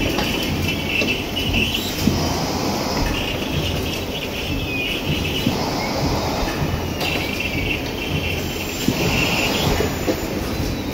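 Automatic carton-folding machine for sugar boxes running: a steady mechanical clatter of its chain conveyor and folding rails, with scattered sharp clicks and a high-pitched sound that comes and goes every few seconds.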